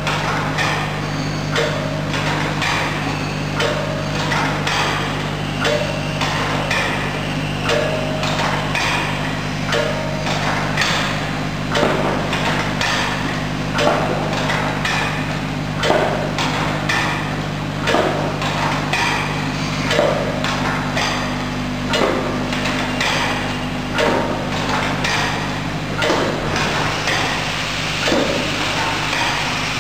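Three-dimensional overwrapping packing machine running: a steady motor hum with a sharp metallic clack about every two seconds as its cam-driven mechanism cycles through each wrap, with lighter clicks in between.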